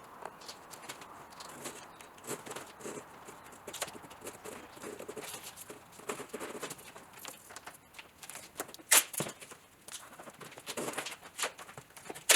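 Irregular taps, clicks and knocks of parts and tools being handled while fitting car windscreen trim, with one loud sharp knock about nine seconds in and a cluster of sharp clicks near the end.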